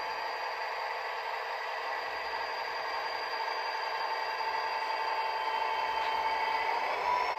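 Model diesel locomotives, a Burlington Northern unit leading a Santa Fe unit, running slowly past with a steady whirring drone that grows a little louder toward the end.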